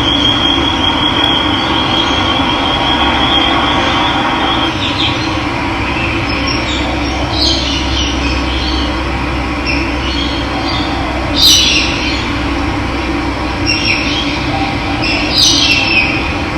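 Steady rush of running water, with birds calling over it: a high trill in the first few seconds, then several short chirping calls, the loudest about two-thirds of the way through.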